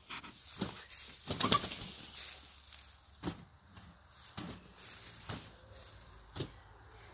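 Chickens scratching and pecking in dry mulch and straw: an irregular series of short rustles and taps, the loudest about one and a half seconds in.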